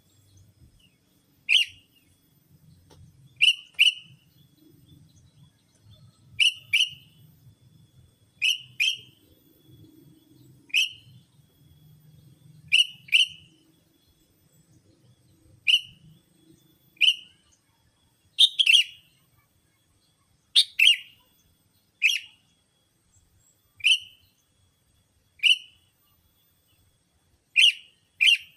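Sooty-headed bulbul (kutilang) lure call: short, sharp notes dropping in pitch, given singly or in quick pairs every second or two.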